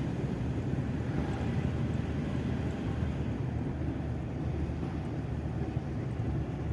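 Toyota Fortuner driving slowly, with a steady low rumble of engine and road. The intermittent wheel-area squeal is absent at this moment.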